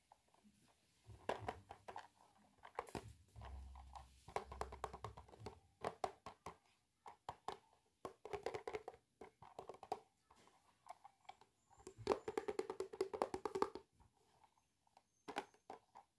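Hollow plastic toy bathtub being handled and turned over, giving bursts of light clicks, taps and rattles of hard plastic, with a busy run of rapid clicks about three-quarters through.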